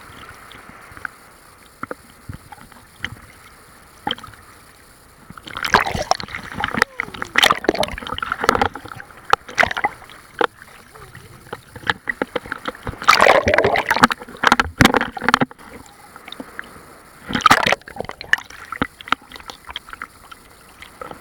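Sea waves surging and splashing close to the microphone in three loud rushes, about five, thirteen and seventeen seconds in, with lighter sloshing and clicks of water in between.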